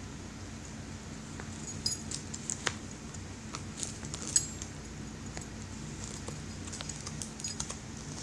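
A dog gnawing and chewing on a bone: irregular sharp clicks and crunches of teeth on bone, the loudest crack about four and a half seconds in, over a steady low hum.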